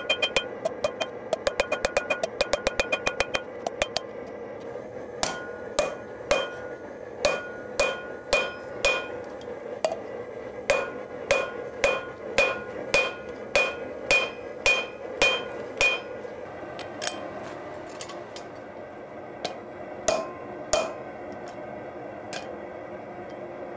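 Hand hammer striking red-hot leaf-spring steel on an anvil, each blow ringing. It begins with a quick run of light taps, about five a second, then settles to steadier blows about two a second, and thins to occasional strikes in the last several seconds.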